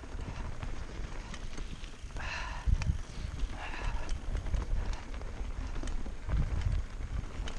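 Mountain bike riding over a rough dirt trail: irregular clicks and rattles from the tyres on stones and from the chain and frame, with gusts of wind rumbling on the camera microphone.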